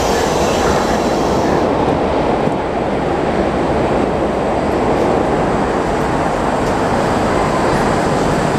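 81-740 Rusich metro train running through a station, heard from inside the car: a steady rumble of wheels and running gear, with some higher-pitched noise that fades away in the first couple of seconds.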